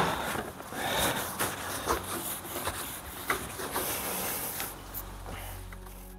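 Cloth wiping and rubbing along a car's painted roof-opening flange, with scattered light knocks and handling clicks, as the bodywork is cleaned down with white spirit before bonding.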